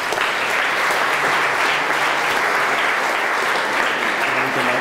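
Audience applauding, steady clapping that is cut off abruptly at the end.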